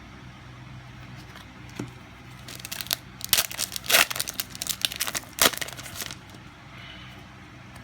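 A trading-card booster pack wrapper crinkling and tearing in a dense run of crackles, from about two and a half seconds in to about six seconds in.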